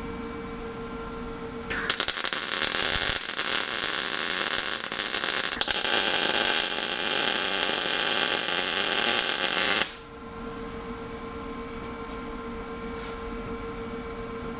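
MIG welder laying a bead of weld on a steel steering bracket plate: a loud steady hiss of the arc starts about two seconds in and cuts off sharply about eight seconds later. A steady hum sits under it before and after.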